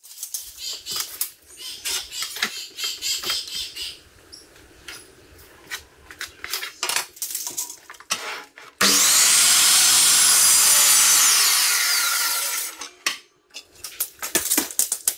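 Knocks and clatter of pine boards being handled on a Ryobi mitre saw. About nine seconds in, the saw runs loud for about four seconds as it crosscuts the board, then fades away, followed by a few more knocks.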